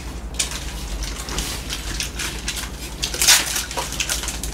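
Irregular light rustling, taps and clicks of things being handled at a table, with one louder rustle about three seconds in, over a steady low hum.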